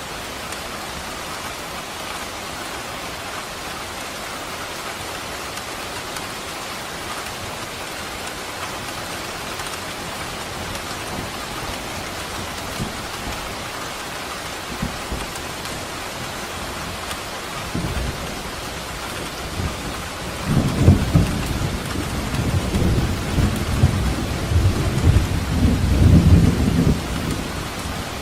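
Steady rain falling, with a long roll of thunder rumbling in about two-thirds of the way through and going on for several seconds before it fades near the end.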